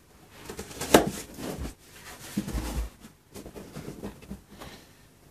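Cardboard shipping box and its packing inserts being handled: rustling and scraping with a sharp tap about a second in and a dull thump a little later.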